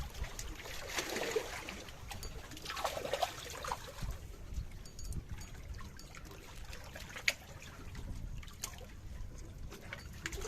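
Water trickling and splashing in a few short swells, over a low rumble, with one sharp click past the middle.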